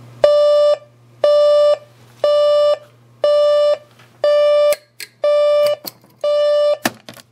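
Philips digital alarm clock going off: an electronic beep about half a second long, repeated about once a second, seven times. A few sharp clicks come near the end, and the beeping stops.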